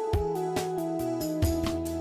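Background music: a sustained melody that steps from note to note over a light, steady beat.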